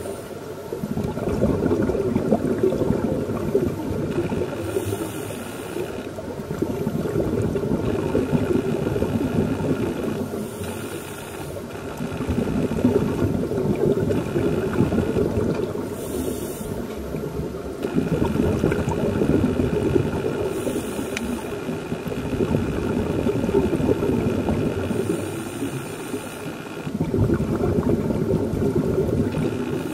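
Scuba regulator breathing heard underwater: a short hissing inhale, then a few seconds of rushing, bubbling exhalation, repeating about every five to six seconds.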